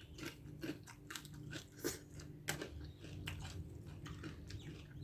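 Close-miked chewing, a person eating with small crunches and wet mouth clicks at an irregular pace.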